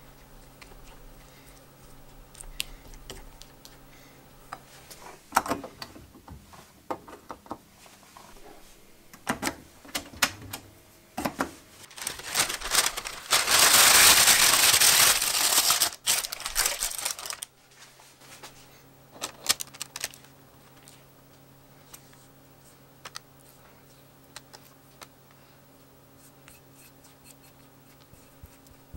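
Parchment baking paper crinkling loudly for about five seconds, roughly halfway through, as hands press it into a loaf pan. Scattered sharp clicks and taps of handling come before and after it.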